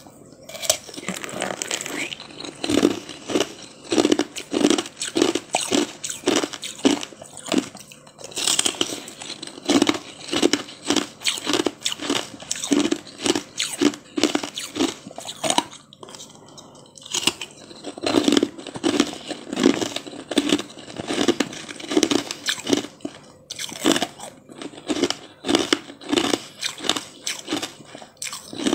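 Close-miked chewing and crunching of a frozen, translucent yellow jelly treat: steady bites and chews just under two a second, crackling as the icy piece breaks, with a short pause about halfway.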